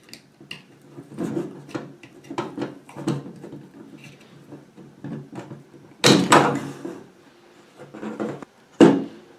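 Plastic parts of a mini electric paper shredder being worked apart by hand: irregular clicks, scrapes and knocks as the gearbox with its plastic gears is pried loose from the base. The loudest clatter comes about six seconds in, with a sharp knock near the end.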